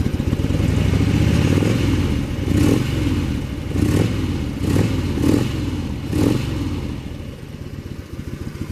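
2000 Harley-Davidson Road King's fuel-injected Twin Cam 88 V-twin running through its factory exhaust with fishtail tips: a lumpy idle, then five short throttle blips in quick succession before it settles back to idle near the end.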